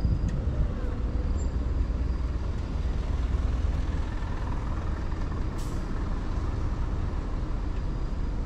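Steady low outdoor rumble with a hiss over it, with a single short sharp click a little past the middle.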